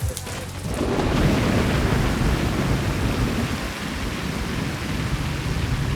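Steady rain with a low rumble of thunder, swelling up about a second in.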